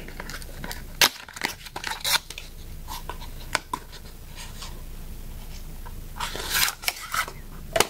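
Cardboard cosmetics box being handled and its tuck-in end flap opened by hand: scattered sharp clicks and rustles of paperboard, with a longer rustle near the end.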